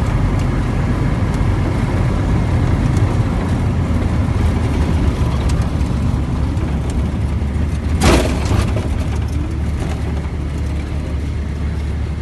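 Steady low rumble of car engine and road noise from a car driving along a city road, with a short sharp burst of noise about eight seconds in.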